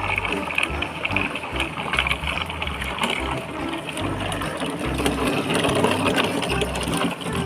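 Rapid, continuous ratchet-like clicking and rattling, as of toy vehicles being handled, over a low pulsing background.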